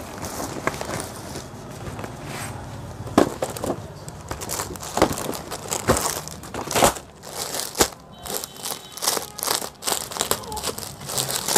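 Clear plastic saree wrapper crinkling and crackling as it is handled and slid out of a cardboard box, with irregular sharp crackles throughout.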